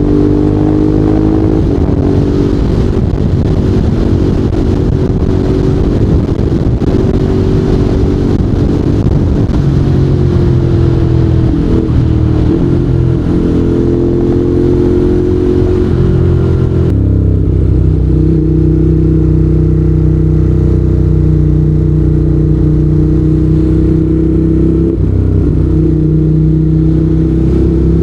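Ducati Monster 821's 821 cc L-twin engine and exhaust running under way, the note rising and falling with the throttle. About two-thirds of the way through the hiss drops away abruptly and the engine settles into a steady lower note.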